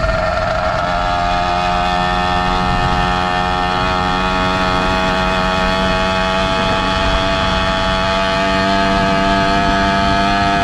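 Small two-stroke motorized-bicycle engine, a Zeda 80 kit, running at a steady cruising speed with an even, unchanging pitch.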